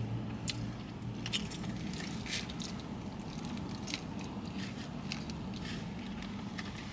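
A person chewing food close to the microphone, with scattered small wet clicks and crunches, over a faint steady low hum.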